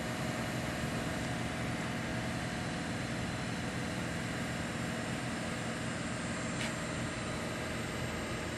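Steady mechanical hum over an even background noise, with a faint click about two-thirds of the way in.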